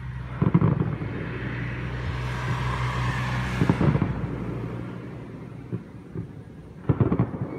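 A car passing on the street, its engine and tyre noise swelling up and fading away over a few seconds. Over it come bursts of distant firework booms: about half a second in, near four seconds and near the end.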